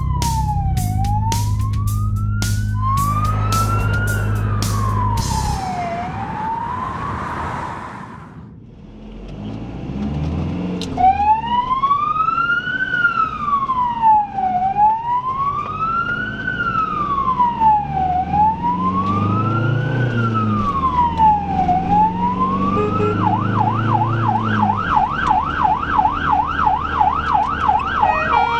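Ambulance siren on a slow wail, rising and falling about every four seconds, switching near the end to a fast yelp of about three sweeps a second. In the opening seconds the wail plays over music with a low, sustained bass.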